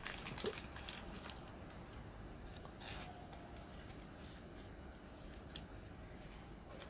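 Faint rustling and a few light clicks of glossy basketball trading cards being handled.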